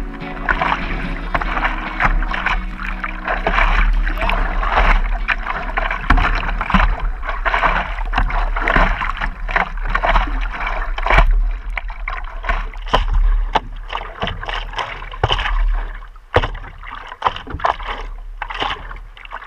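Sea water splashing and sloshing against the nose of a stand-up paddleboard as it is paddled, a close wash of water noise broken by many sharp splashes. It gets quieter about three quarters of the way through.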